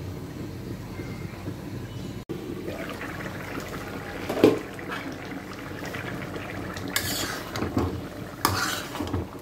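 Metal spatula stirring a thick bottle gourd and chicken curry in an iron karahi, scraping and knocking against the pan. There is one sharp knock about halfway through, and scraping strokes near the end, over the curry simmering.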